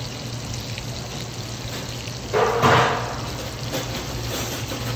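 Liquid going into a pan of hot brown butter and capers, with one short burst of sizzling about two and a half seconds in that quickly dies down, over a steady low hum.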